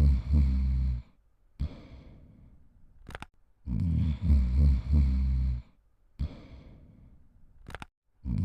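Cartoon snoring sound effect: a loud, low, rattling snore about two seconds long, then a softer airy exhale that fades away, then a short click. The cycle repeats about every four and a half seconds: twice in full, with a third snore starting at the very end.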